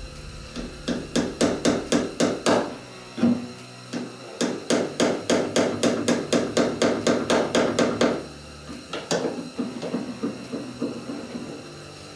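Rapid, regular series of sharp percussive strikes, about four to five a second, in two bursts and then fainter toward the end, each with a short pitched ring.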